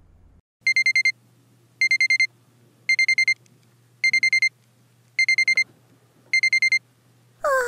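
Alarm clock beeping: six bursts of about five quick, high, shrill beeps, roughly one burst a second.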